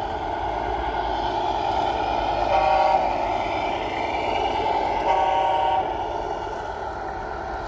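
Tamiya Scania R620 radio-controlled truck running on asphalt, with a steady mechanical drive noise. Two short horn blasts sound about two and a half seconds and five seconds in.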